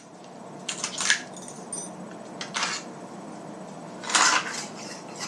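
Metal parts of a shotgun clicking and clattering as it is taken apart by hand: a few separate clinks and rattles, the loudest about four seconds in.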